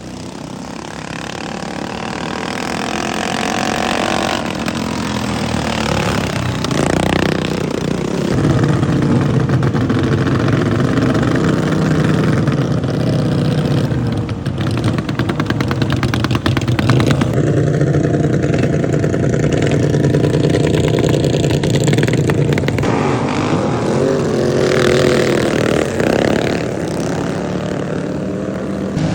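Racing lawn mower engines running hard, their pitch rising and falling as they rev up and ease off. The sound grows louder over the first few seconds.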